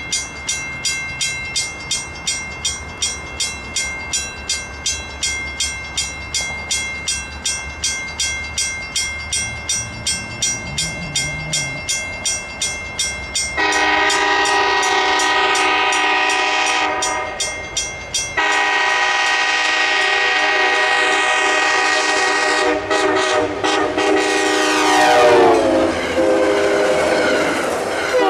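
Grade crossing bell ringing in quick, even strokes as a CTrail train approaches. About 14 seconds in, the train's horn starts: a long blast, a brief break, then a second long blast held as the train reaches the crossing. Its pitch drops as the train passes, and wheel and car noise follows near the end.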